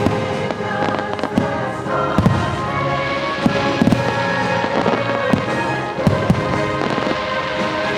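Fireworks exploding one after another, sharp bangs every second or so, over loud show music.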